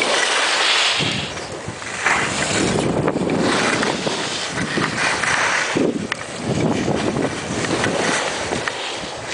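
Wind rushing over the microphone of a moving camera on a ski run, with the hiss of skis sliding over snow, a rough noise that swells and eases every second or two.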